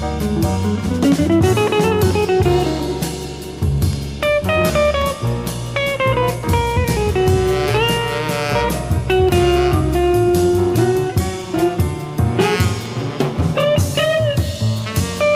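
Small jazz group recording (saxophone, guitar, piano, bass and drums in the lineup): a lead melody with sliding, held notes over a walking bass line and drum kit.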